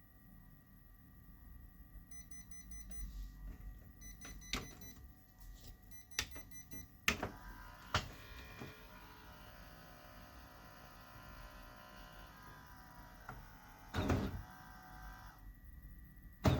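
Kyocera P3145dn laser printer starting up after being switched on: a few sharp clicks, then its drive motors running with a steady whine, and a short rasp near the end.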